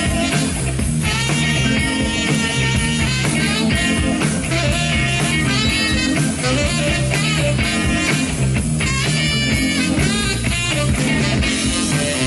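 Live band playing an up-tempo soul-rock groove with a steady beat and bass, and a lead instrument playing held high lines. There is no singing.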